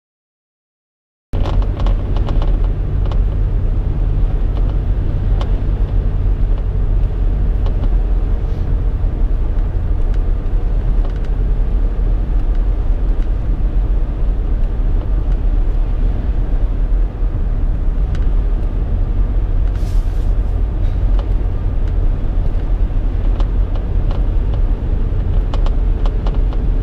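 Steady road and engine rumble inside a moving car's cabin, starting about a second in, with scattered faint clicks from a piece of ice against the windshield.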